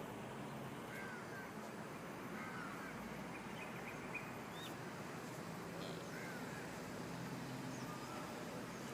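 Steady outdoor background noise with faint, short bird chirps every second or so.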